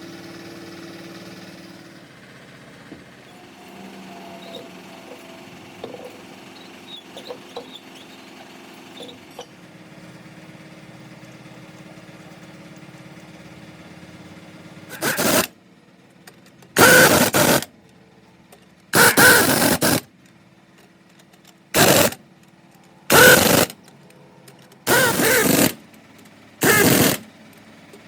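Pneumatic impact wrench firing in short bursts, about seven of them roughly every two seconds in the second half. Before that there is a low steady hum with a few light knocks.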